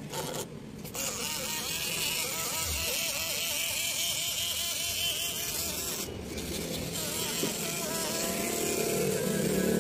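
Power-folding car side mirror motor buzzing with a wavering whine. It starts about a second in, stops briefly around six seconds, then runs on. The motor keeps running without folding the mirror.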